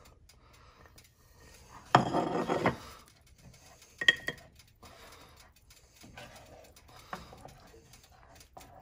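Seasonings tipped off a ceramic plate into an enamelled cast-iron Dutch oven, with a loud scraping rattle about two seconds in and a sharp ringing clink about four seconds in. After that comes soft scraping with small knocks as a wooden spatula stirs the spices into the thick sauce.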